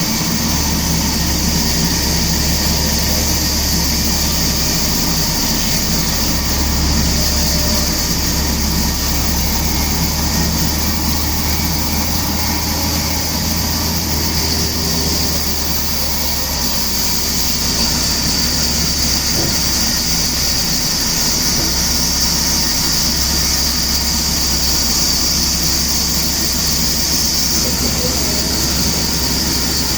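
Steady, loud machinery noise running without a break, with a deep hum underneath and a hiss on top.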